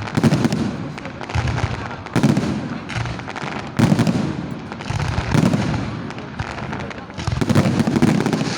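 Aerial fireworks bursting overhead: a string of loud bangs about every second or so, each followed by a rumbling echo, with crackling in between.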